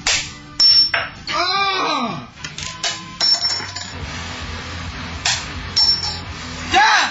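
Quarters clinking against glass and landing on a wooden table in several sharp hits, one coin ringing with a wobbling tone that falls in pitch about a second and a half in, and another ringing clink near the end.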